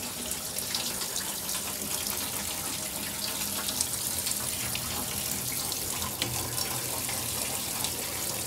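Water running steadily from a faucet and splashing into a sink, through newly installed plumbing fed from a campground water supply.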